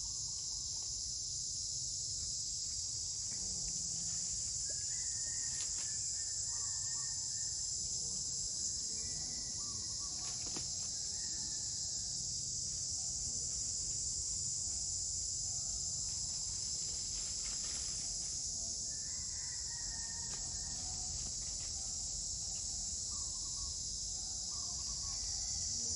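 Steady high-pitched drone of insects, such as cicadas or crickets, with a few faint bird calls that come and go.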